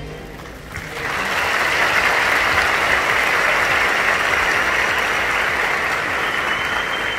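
A large audience applauding, the clapping starting about a second in and continuing steadily.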